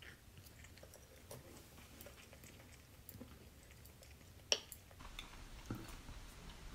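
Faint scattered clicks of chopsticks against a dish while eating, with quiet chewing; one sharper click about four and a half seconds in.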